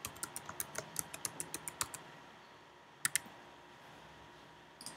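Computer keyboard typing: a quick run of keystrokes for about two seconds, then a couple of separate key clicks about three seconds in and again near the end.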